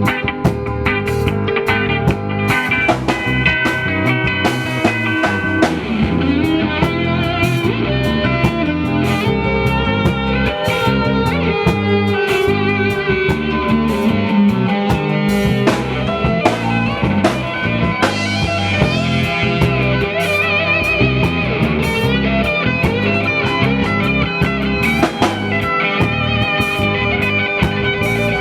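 A live band playing, an electric guitar to the fore over bass and regular drum hits, with wavering bent guitar notes about two-thirds of the way in.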